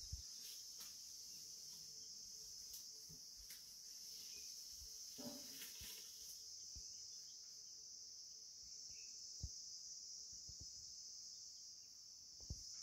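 Faint, steady high-pitched insect drone, with a few soft knocks scattered through it, one about nine seconds in and one near the end.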